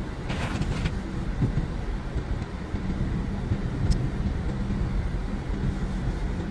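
Car cabin noise while driving: a steady low rumble of engine and tyres on the road. A short hiss comes about half a second in and a light click about four seconds in.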